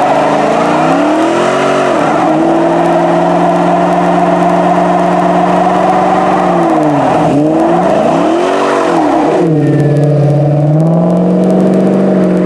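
Dodge Challenger SRT8 392's 6.4-litre Hemi V8 through a Flowmaster exhaust, held at high revs during a burnout. The revs drop and climb back three times, then settle lower as the car pulls away.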